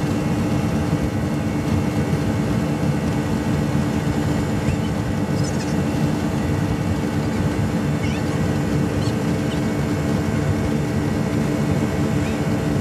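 Twin 250 hp Yamaha outboard engines of a wooden speedboat running under way: a loud, unbroken drone with a constant hum.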